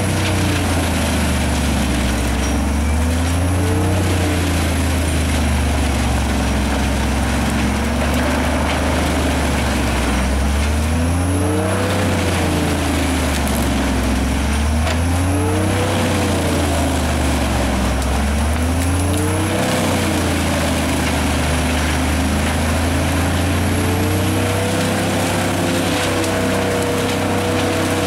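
Bruks wood chipper driven by a Scania diesel engine, chipping brush and small trees fed in by a grapple crane. The engine runs loud and steady, its pitch sagging and recovering several times as loads go through the chipper, over a constant rushing of chipping.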